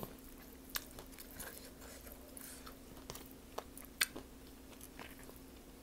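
Close-miked chewing of Burmese fermented tea leaf salad (lahpet thoke), quiet, with a few short sharp clicks, the clearest about a second in and twice around the four-second mark.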